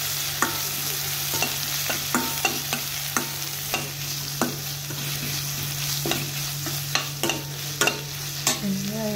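Sliced onions sizzling in hot oil with a mustard-seed and urad-dal tempering in a metal pan, stirred with a spoon that clicks and scrapes against the pan at irregular moments: onions being sautéed at the start of the tempering.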